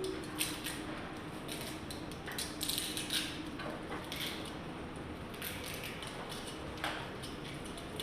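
Irregular mechanical clicks and creaks, a few to several a second, over a faint steady hum.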